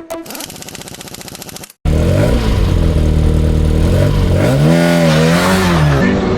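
Car engine under hard driving, revving with its pitch rising and falling repeatedly as it accelerates and lifts off. It is preceded by a quieter stretch of rapid, even ticking that cuts out abruptly.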